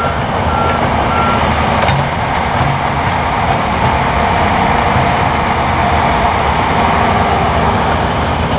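Heavy land-clearing equipment, an excavator and a wheel loader, working with their diesel engines running steadily under load. Three short backup-alarm beeps sound in the first second and a half.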